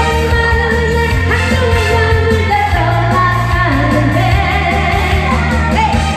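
Korean pop song playing live: backing music with a steady bass beat and a wavering melodic lead line, in a stretch without sung lyrics.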